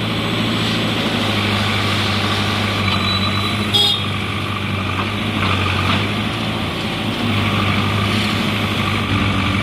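Diesel engine of a Caterpillar backhoe loader running steadily under work. About four seconds in there is one short, sharp, high-pitched sound.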